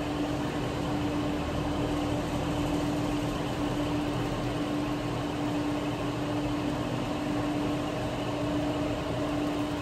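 Steady hum of casino slot machines and air handling: a constant low tone over an even background hiss, with no clear events.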